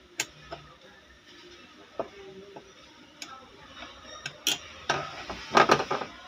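Light metallic clicks and taps of a hand tool and small metal parts at a chain-stitch sewing machine's looper as the looper is set a little closer to the needle. The clicks are scattered, with a quick cluster of louder ones near the end.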